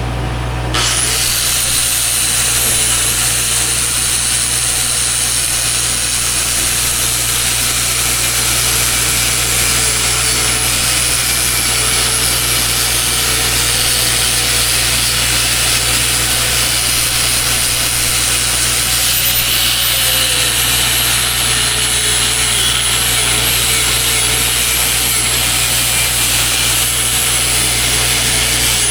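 Arc-welding crackle: a steady frying hiss from a stick-welding arc, starting about a second in and running on, over the low steady hum of an engine.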